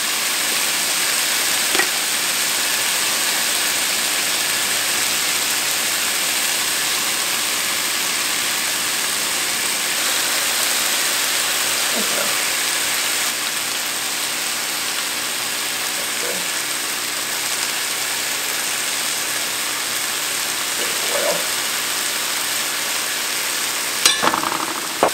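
Chicken pieces sizzling steadily in a large nonstick skillet, a constant frying hiss. A few faint taps along the way and a brief, louder clatter near the end.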